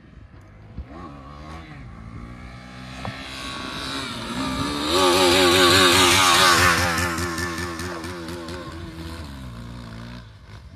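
Motorcycle engine revved in quick throttle blips with the clutch pulled in while the bike is held up on its rear wheel in a coaster, so the engine revs freely without driving the wheel. It passes close and is loudest about five to seven seconds in, then fades as the bike rides away.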